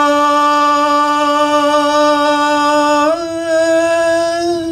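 A man's voice drawing out a long, sung street cry, "soba…", in imitation of a night soba vendor's call. The note is held steady, steps up slightly about three seconds in, and breaks off briefly near the end.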